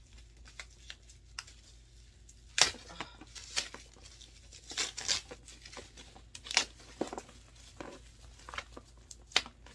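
Packaging wrapping crinkling and tearing as it is pulled off and handled, in irregular sharp crackles, the loudest about a third of the way in and again near the end.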